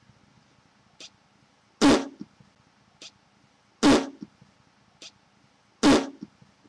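A woman puffing out her cheeks and pressing them with her fingers so the air bursts out through her lips in a fart-like raspberry, three times about two seconds apart. Each one is preceded by a short faint click.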